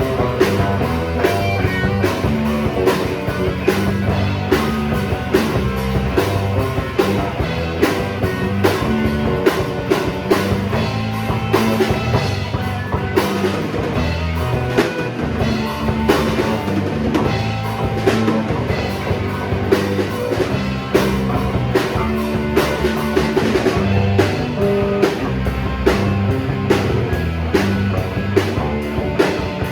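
Rock music: a drum kit keeping a steady beat under guitar.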